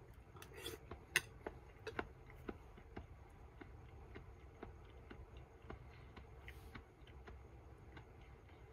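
A metal spoon clinks against a ceramic plate, sharply about a second in and again about a second later, over a faint, even ticking about twice a second.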